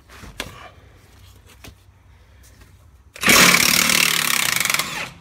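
Milwaukee impact wrench hammering for about two seconds on a transmission-mount bolt, starting about three seconds in after a few light clicks. The bolt is seized by Loctite and corrosion.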